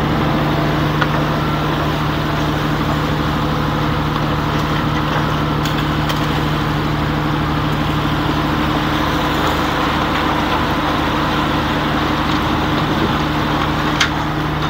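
Skipjack purse-seine fishing boat's engine running steadily with an even drone, the boat held in reverse to keep the anchor rope clear of the propeller. A single short tick near the end.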